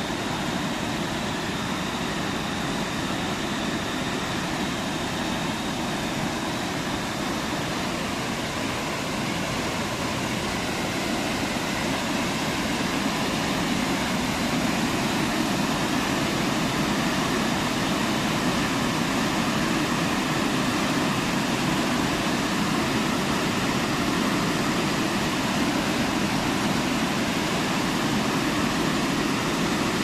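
Waterfall in full spate pouring into a muddy pool: a steady rush of falling water, a little louder from about halfway.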